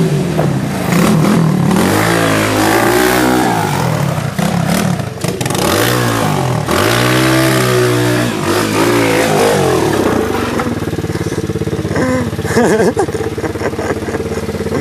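A 125cc pit bike engine revving up and down repeatedly as it is ridden hard through skids, then settling to a steady low running about ten seconds in, with a few clacks near the end.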